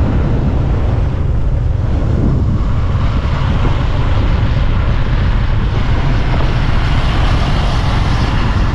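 Motorbike riding at road speed: wind buffeting the microphone over the engine and tyre noise, a loud, steady low rumble.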